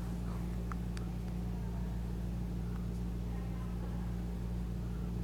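Steady low hum with a couple of faint clicks about a second in.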